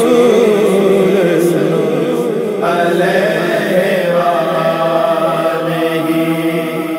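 Unaccompanied naat singing: a male voice holds a long wavering note over a steady hummed vocal drone. About two and a half seconds in it gives way to a different held vocal chord that begins to fade near the end.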